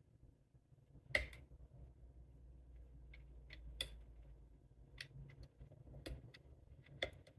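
Faint, scattered clicks from an ERA Fortress lever lock as its levers are lifted and worked with a music-wire pick under tension; the loudest comes about a second in and another near the end. The clicks are the levers moving against the bolt stump, the feedback the picker listens for to find each lever's gate.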